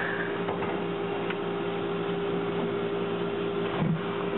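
Narrow-gauge steam locomotive standing in the station: a steady hum with a constant tone over the hiss of escaping steam, and a soft low thump near the end.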